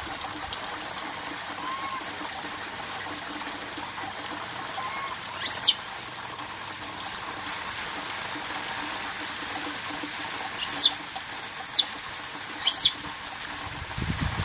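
Steady heavy rain with water trickling, and a baby macaque calling over it: a couple of faint soft coos, then four short, sharp, high-pitched squeaks, one about halfway and three close together near the end.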